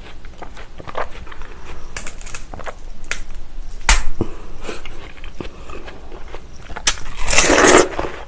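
Chewing and biting crisp, juicy watermelon, with wet crunching clicks throughout. A loud sharp crack about four seconds in as a slice is snapped in two by hand, and a long loud crunching bite near the end.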